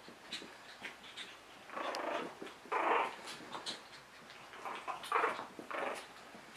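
Tiny 10-week-old Mi-Ki puppies play-fighting, giving several short growls and yaps in bursts about a second apart.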